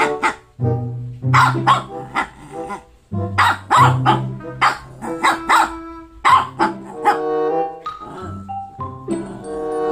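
Shih Tzu barking repeatedly in short clusters of barks, attention-seeking barks at a Toy Poodle, over background music with held mallet-percussion notes.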